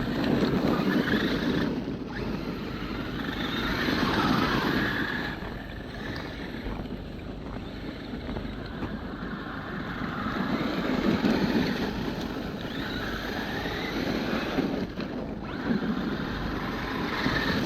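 Traxxas X-Maxx electric RC monster truck driving, its motor whine and tyre noise swelling and fading several times as the throttle comes on and off.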